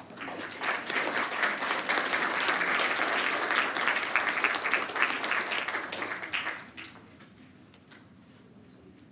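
Audience in a meeting chamber applauding: a burst of many hands clapping that starts at once, holds for about six seconds, then dies away.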